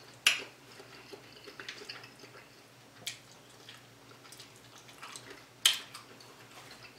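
Close-miked eating sounds from a person picking at and eating shrimp by hand: three sharp wet clicks, loudest just after the start and again about two-thirds of the way in, with faint smaller ticks between.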